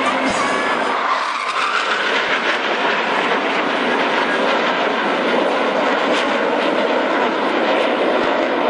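Five Northrop F-5E Tiger II twin-turbojet fighters flying overhead in close formation: a steady, loud rush of jet engine noise.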